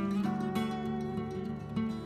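Background music: a plucked-string tune with repeated note attacks.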